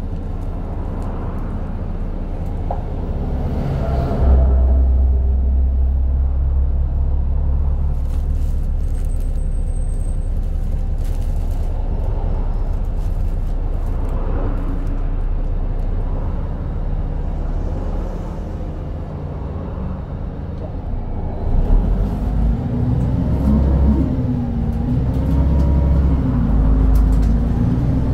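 Cabin noise of a Volgabus-6271.G2 articulated city bus under way on compressed natural gas: a steady low rumble from its Yuchai YC6L six-cylinder gas engine and running gear, growing louder about four seconds in. Over the last few seconds a wavering pitched sound joins the rumble.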